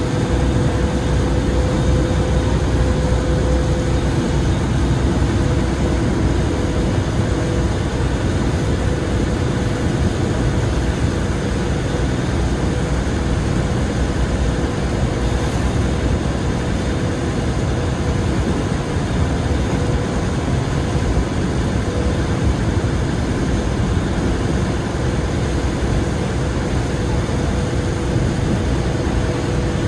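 A riverboat's engine running steadily under way, with water rushing past the hull.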